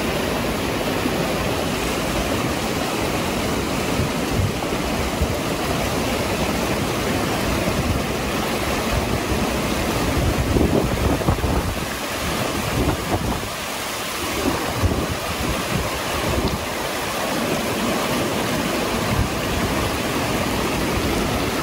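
Rushing water of a mountain stream, a steady noisy rush, with uneven low gusts of wind on the microphone around the middle.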